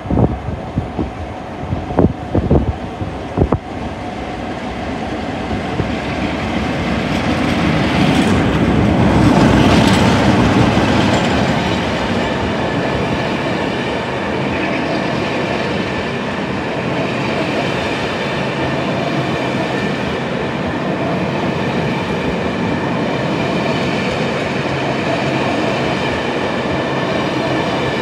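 Diesel locomotive hauling a train of passenger coaches past at close range. A few sharp knocks come in the first few seconds. The locomotive's sound builds to its loudest about nine to ten seconds in as it passes, then gives way to the steady rumble and clickety-clack of the coaches rolling by.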